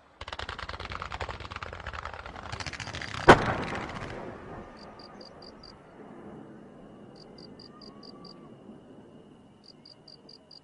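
A string of firecrackers going off in rapid crackling pops, with one much louder bang about three seconds in, dying away after about four seconds.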